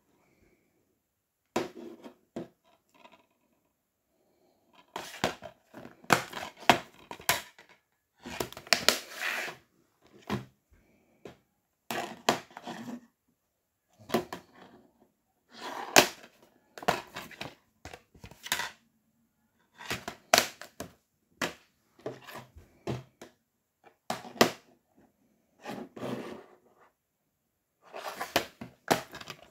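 Plastic DVD cases being handled, turned over and set down on a wooden tabletop: irregular bursts of clicks, taps and knocks with short silent gaps between them.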